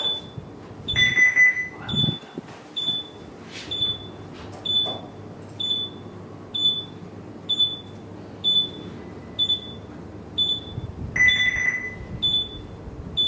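Ship bridge console alarm beeping: a short high beep repeating steadily, about one and a half a second. A longer, lower tone sounds twice, about a second in and near the end.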